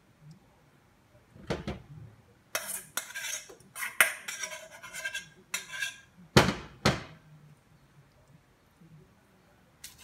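A spoon clinking and scraping against a bowl in a run of short bursts while filling is scooped out, with the sharpest knocks about four and six and a half seconds in.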